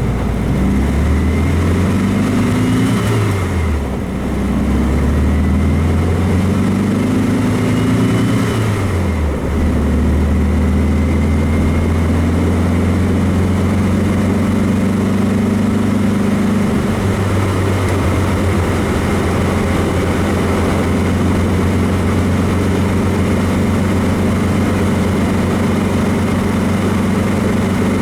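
VW Beetle's 1776 air-cooled flat-four engine pulling up through the gears, heard from inside the car. The revs climb and fall away at a shift about four seconds in, climb again and fall at a second shift near nine seconds, then the engine cruises at a steady pitch.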